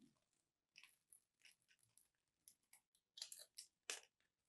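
A small knife cutting into a bar of dry, crumbly soap: a run of short, crisp crackles as small cubes snap off and fall. The crackles come thicker and louder about three seconds in.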